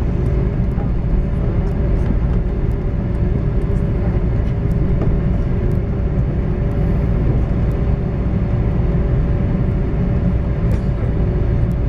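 Airbus A330 cabin noise while taxiing: a steady low rumble from the Rolls-Royce Trent engines, with a couple of constant hums running through it.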